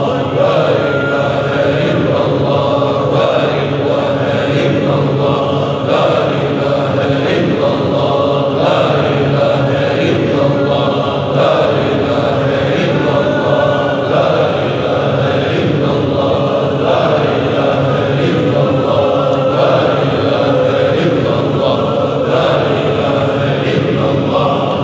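A congregation of men chanting dhikr (zikr) together in unison, one short phrase repeated over and over about every three seconds.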